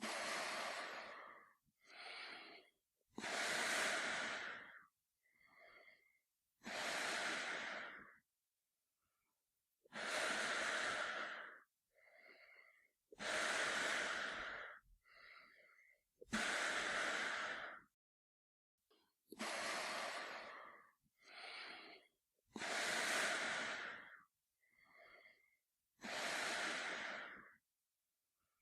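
A man breathing slowly and heavily through a gas mask. Long, loud hissing breaths come about every three seconds, each answered by a shorter, fainter breath, with silent gaps between.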